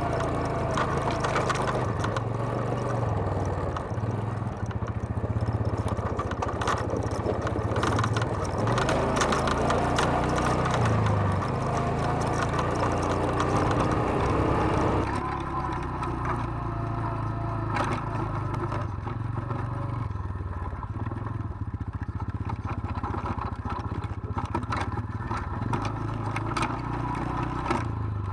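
ATV engine running steadily as the quad rides over a rocky dirt trail, with clattering and scraping from the machine and the ground. About halfway through, the sound changes abruptly and the high hiss drops away.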